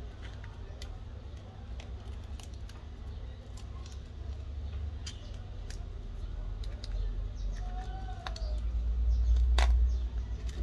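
Light clicks and small scrapes of a thin metal pry tool and fingertips working along a phone's bare metal midframe, with one sharper click near the end. A steady low rumble runs underneath and swells near the end.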